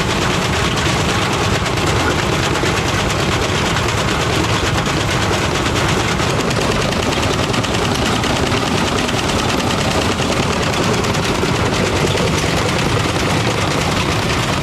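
GE washing machine spinning an off-balance load of drill steel and plastic trash, the junk hammering against the drum in a fast, continuous rattle.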